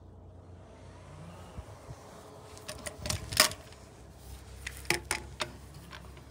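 Irregular metallic clicks and knocks from a vintage hand-cranked rotary egg beater being handled. The loudest knock comes near the middle, and a quick run of clicks follows about a second and a half later.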